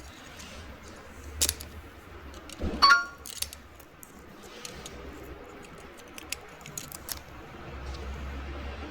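Small metal clicks and taps of hand tools and tiny screws on the phone's internal parts, with one louder ringing metallic clink about three seconds in.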